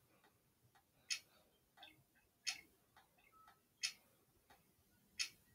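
Four faint, sharp ticks, evenly spaced a little over a second apart, with a few fainter clicks between them over near silence.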